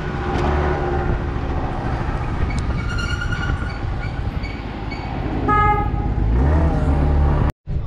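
Motor scooter running through city streets with engine and wind noise. A vehicle horn toots briefly twice, about three and five and a half seconds in, and the engine revs up near the end before the sound cuts off abruptly.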